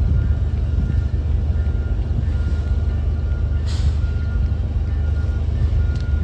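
Steady low rumble with a faint high beep sounding on and off, and a short hiss a little under four seconds in.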